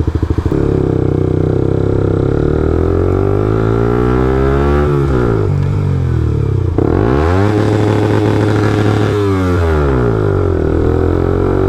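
Suzuki GSX-R 125's single-cylinder engine under way: its pitch falls as the bike slows and rises again as it pulls away, twice.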